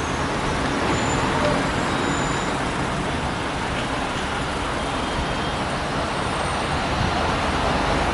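Street traffic: a line of cars and taxis moving slowly through a congested street, a steady wash of engine and tyre noise.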